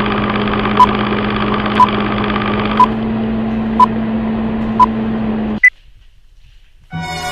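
A steady machine hum with a short high beep about once a second, five beeps in all. It stops abruptly about five and a half seconds in, just after a brief higher-pitched beep.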